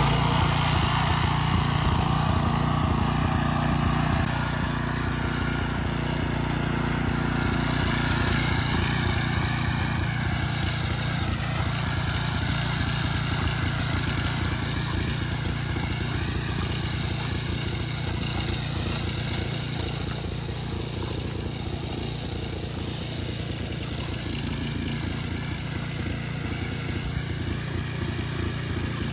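Small engine of a Wolf ride-on lawn mower go-kart running steadily under way, slowly fading as it drives off.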